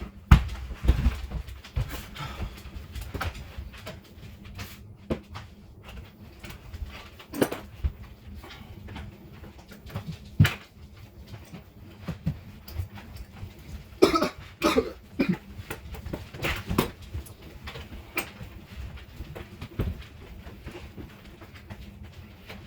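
Scattered knocks and clicks of hands working on the refrigerator, with a short run of harsh cough-like sounds about fourteen seconds in.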